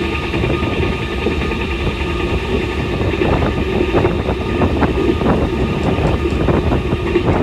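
Iarnród Éireann 201 class diesel locomotive's EMD 12-710 two-stroke V12 engine running with a steady drone. From about three seconds in, a run of irregular clicks and rattles joins it.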